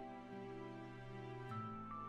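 Soft background music: held instrumental notes that change a couple of times.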